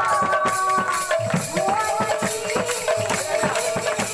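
Kirtan music: two-headed barrel drums beaten in a quick, busy rhythm with jingling metal percussion, under a long-held melody line.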